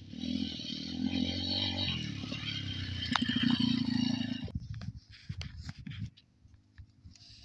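YCF 150cc pit bike's single-cylinder four-stroke engine running under throttle as the bike rides along a dirt track, cutting off abruptly about four and a half seconds in. A few short low thumps follow.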